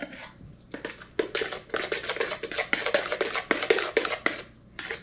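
A utensil stirring and scraping spaghetti squash mixed with a little beaten egg in a plastic mixing bowl, in quick clicking strokes that stop about four and a half seconds in.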